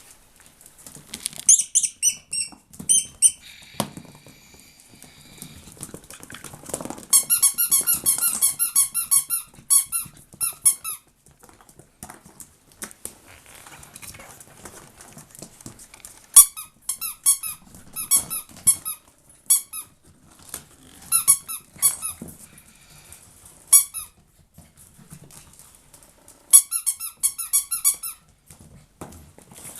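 Repeated trains of rapid high-pitched squeaks, several a second, each train lasting one to a few seconds, among a litter of Chihuahua puppies. Quieter scuffling and pattering fill the gaps between.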